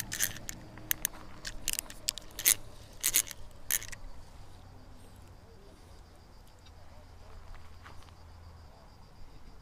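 Sharp clicks and rattles from handling a miniature pen rod and its small spinning reel, clustered in the first few seconds. After that comes a faint, steady, high insect chirring.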